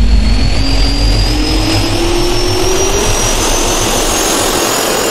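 Jet turbine spool-up sound effect: loud rushing noise with a high whine and a lower whine both rising slowly in pitch.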